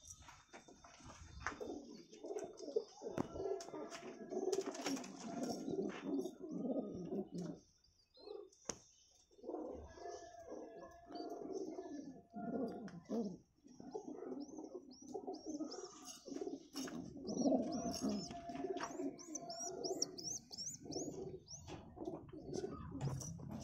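Domestic high-flyer pigeons cooing over and over in a loft. High thin chirps come in during the second half.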